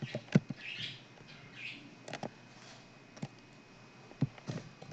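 Computer mouse and keyboard clicks, about eight sharp clicks spaced irregularly, with a couple of faint hissing sounds between them.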